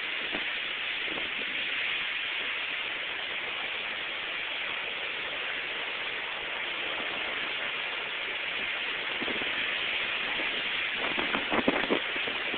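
Steady hissing rush of a thunderstorm's wind and rain around a tornado, with a few sharp knocks near the end.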